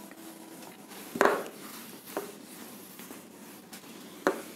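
A handheld duster wiping a whiteboard: a few brief rubbing strokes, the loudest about a second in, and a sharp tap a little after four seconds.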